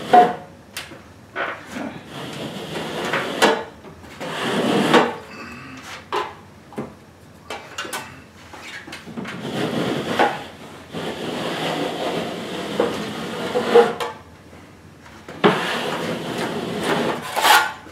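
Putty knife scraping water-dampened popcorn ceiling texture off drywall in a series of strokes of a second or two each, the scrapings dropping into a metal drywall pan, with sharp knocks of the knife against the pan between strokes.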